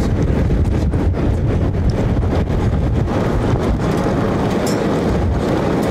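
Wind buffeting the microphone together with the road rumble of a moving vehicle, a loud, steady rushing noise heard from inside the vehicle beside the side window.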